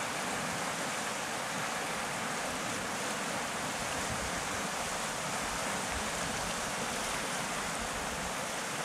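Steady rush of the Bistrita river flowing fast over shallow rapids.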